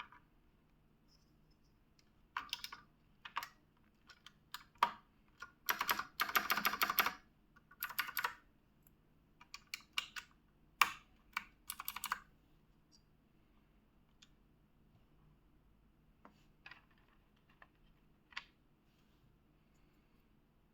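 Keys of a mechanical keyboard fitted with ARDOR GAMING keycaps clacking as they are pressed, in irregular clusters. A fast run of keystrokes comes about six seconds in, and a few single presses follow later.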